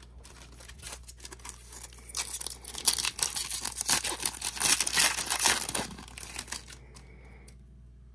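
Foil wrapper of a trading-card pack being torn open and crinkled: a dense crackling that starts about two seconds in, is loudest in the middle and dies away near the end.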